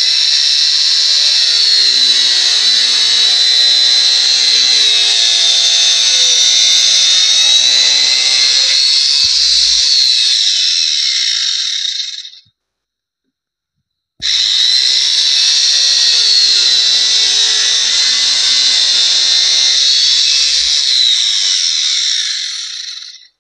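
Wonder Cut angle grinder with an iron-cutting disc running and slicing through a PVC pipe: a loud, steady high whine that wavers in pitch as the disc bites. It dies away about halfway, then starts again after a second and a half of silence.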